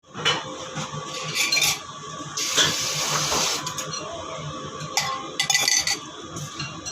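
Kitchenware being handled: scattered clinks and knocks of dishes and utensils, with a stretch of rushing, water-like noise of a second or two near the middle.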